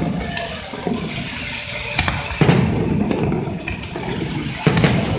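Fireworks display: a continuous rumbling crackle broken by sharp bangs about two seconds in, again half a second later, and near the end.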